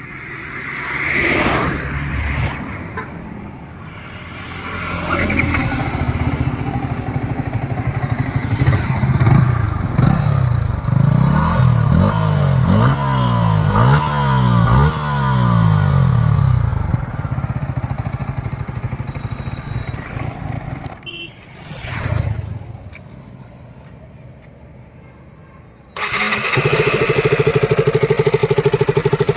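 Stock single-cylinder sport motorcycle engine revved again and again, its pitch rising and falling with each blip of the throttle, then easing off. About 26 seconds in, the sound cuts suddenly to a motorcycle engine running at a steady idle.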